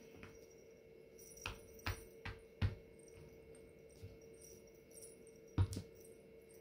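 Hands handling and pressing fabric, fur and a light string onto a sweatshirt: a few soft knocks and taps, the loudest pair about five and a half seconds in, over a steady faint hum.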